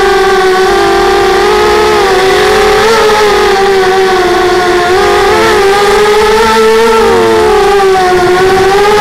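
Electric motors and propellers of a small FPV drone, heard through its onboard camera: a loud, steady whine whose pitch wavers up and down, dipping briefly about seven seconds in.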